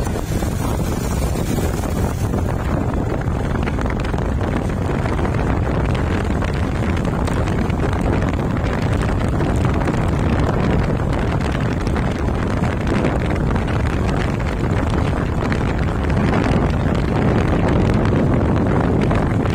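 Wind buffeting the microphone of a moving motorcycle, with the bike's engine and tyre noise on the concrete road underneath, steady.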